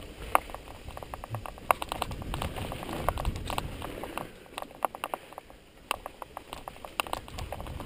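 Mountain bike rolling down a rough dirt trail: a steady run of irregular clicks and rattles from the bike and tyres over the ground, under a low rumble. The rattling thins out and quietens for a couple of seconds past the middle.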